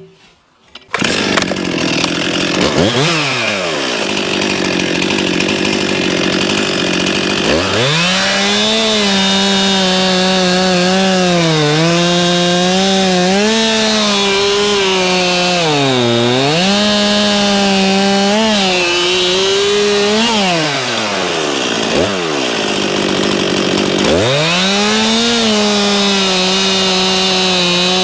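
Stihl MS 261 two-stroke chainsaw coming in about a second in, idling with one quick blip of the throttle, then opened up to full revs. Its pitch sags and recovers several times as it bogs into the cut through wood. It drops back around twenty seconds in and revs up again near the end.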